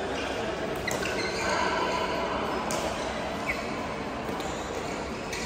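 Badminton hall ambience: a steady background din with a few sharp racket hits on shuttlecocks from the courts.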